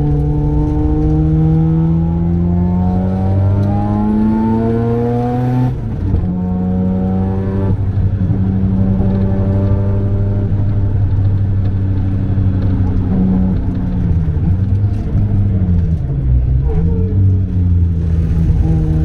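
Turbocharged Mazda 13B rotary engine of a 500 hp RX-7 under hard acceleration on track. It climbs in pitch for about six seconds, drops abruptly at a gear change or lift, and holds steady at high revs. Later the pitch falls and rises twice, then climbs again near the end.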